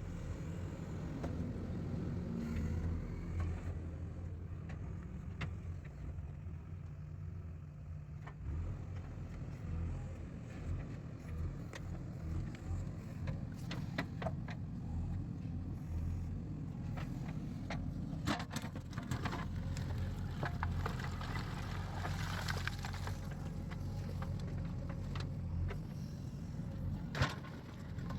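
JCB 3DX backhoe loader's diesel engine running steadily while it works, with scattered sharp clanks and knocks, the loudest about a second before the end.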